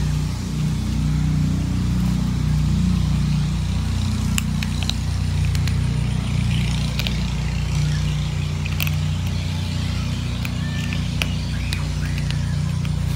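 A cat crunching dry kibble: scattered sharp crunches through the middle and later part, over a loud, steady low drone.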